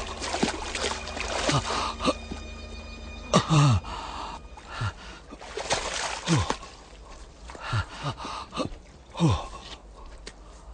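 A man gasping hard for breath with short falling groans, repeated roughly once a second, as he swims and struggles out of the water, with water splashing around him.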